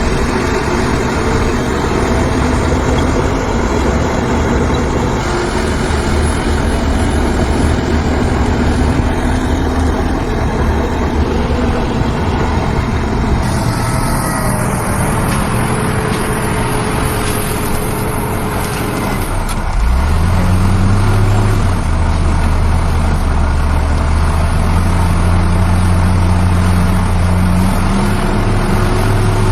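Diesel engines of heavy earthmoving machinery running loudly and steadily. About twenty seconds in, an engine climbs quickly in pitch and then holds a heavier, steady drone, as a machine takes up load.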